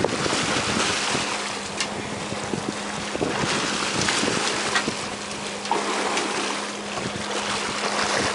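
Sea water rushing and splashing along a boat's hull as a big dorado thrashes against it, with wind on the microphone and a steady low hum from the boat beneath.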